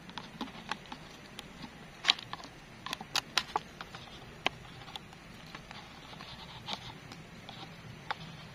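Wooden chopsticks stirring noodles in an instant noodle cup: irregular wet clicks and taps against the cup wall, with a cluster of louder ones about two to three and a half seconds in.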